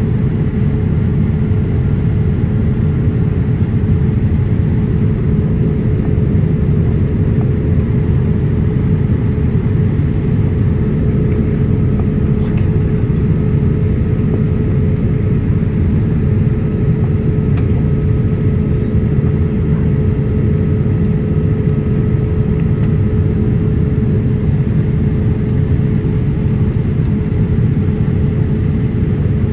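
Steady cabin noise of a Boeing 787-8 in flight: a loud, even rumble of its GEnx engines and the airflow, with a constant mid-pitched hum running through it.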